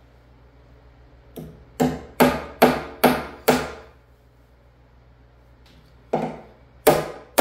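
Claw hammer driving a nail into a reclaimed-wood bench board: a light tap, then five quick blows about two and a half a second, each ringing briefly. After a pause of two seconds, more blows start near the end.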